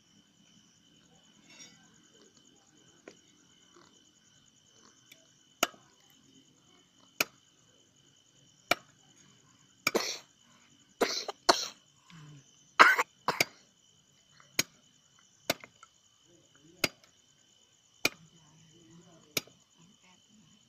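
Machete chopping cassava stems into planting cuttings on a wooden block: sharp single chops about every one to one and a half seconds, with a quicker, louder run of strikes and noise in the middle. Insects trill steadily throughout.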